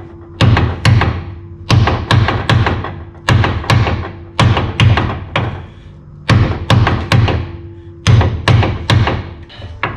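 Repeated hammer blows coming in quick groups of two to four strikes, each with a short ringing tail, and brief pauses between groups.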